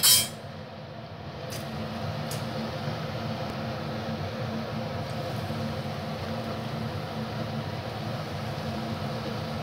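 Lumps of fritter batter deep-frying in a wok of hot oil, a steady sizzle. A brief sharp clatter at the very start, and a couple of faint clicks soon after.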